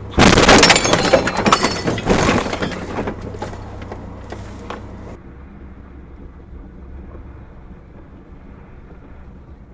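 A car collision heard from inside a vehicle: a sudden loud impact, then about three seconds of shattering glass and clattering debris that die away. After that comes a low, steady hum of a car driving.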